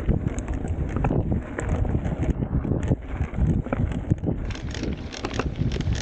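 Wind buffeting the microphone while a mountain bike rolls fast over a dirt trail, the tyres rumbling and the bike rattling and clattering over the bumps.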